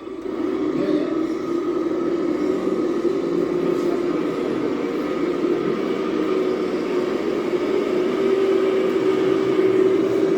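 1/14 scale RC truck running, a steady motor hum that grows a little louder near the end.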